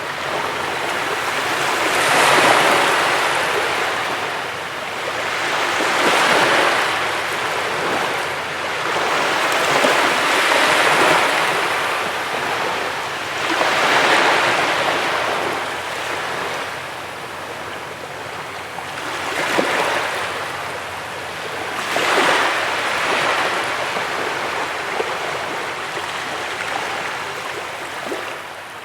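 Sea waves breaking and washing up a beach, the surf swelling and fading about six times, every three to five seconds.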